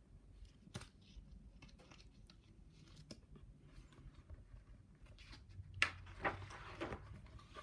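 Paper page of a hardcover picture book being turned: faint small clicks of fingers on the pages, then a louder rustle and flick of the page about six seconds in.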